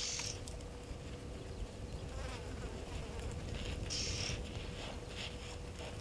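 Insects buzzing in short, high bursts: one at the start, a louder one about four seconds in and a weaker one just after, over a low steady rumble.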